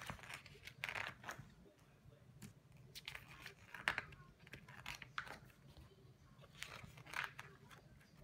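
Pages of a large illustrated book being turned by hand: quiet paper rustling and swishing in a string of short bursts.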